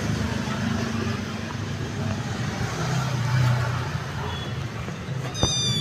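A motor vehicle engine idling with a steady low hum; near the end a sharp click, then a kitten's high-pitched meow that falls slightly in pitch.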